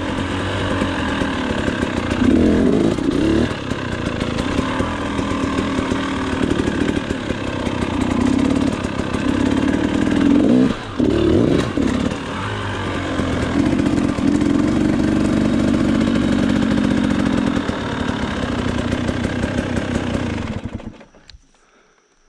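Dirt bike engine heard from on board while riding, the revs rising and falling again and again with the throttle. The engine sound cuts off sharply near the end.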